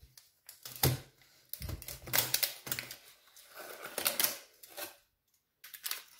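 A metal springform cake pan being handled: a string of clicks and knocks as it is opened and its ring lifted off, with parchment paper rustling; a pause near five seconds, then a few more clicks.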